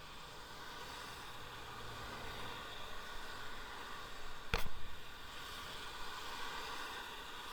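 Steady road noise with a faint hum, broken by one sharp knock about four and a half seconds in.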